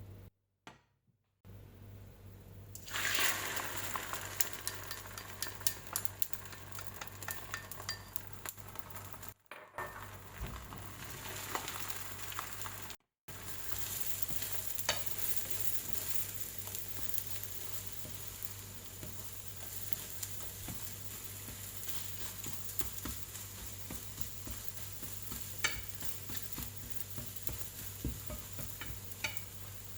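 Beaten egg frying in hot oil in a pan for fried rice, a steady sizzle that starts suddenly about three seconds in, with utensil clicks and scrapes as it is stirred. Twice the sound drops out briefly to silence.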